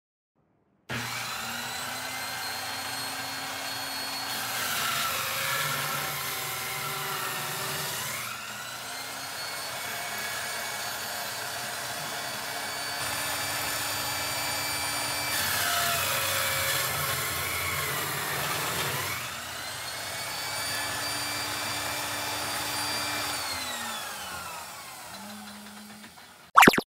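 A handheld circular saw mounted under a homemade saw table runs and cuts wood as a board is pushed through on a sliding sled. Its whine drops in pitch twice as the blade takes the load of the cut, then winds down near the end.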